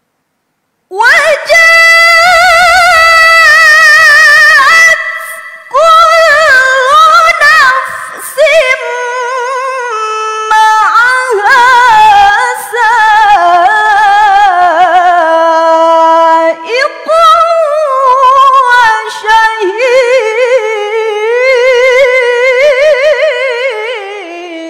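A woman reciting the Qur'an in the melodic tilawah style. The voice starts about a second in and carries long, ornamented phrases whose pitch wavers and glides, with a few brief breaks between phrases.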